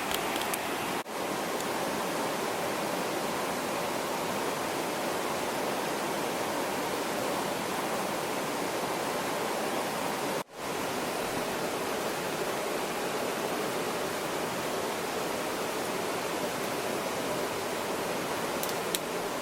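Steady rushing of flowing water that drops out briefly twice, with a few faint ticks near the start and near the end.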